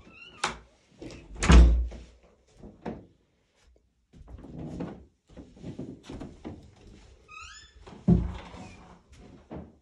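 Dull thumps and knocks of an interior door being handled, the loudest about a second and a half in and another about eight seconds in, with a couple of short rising squeaks between them.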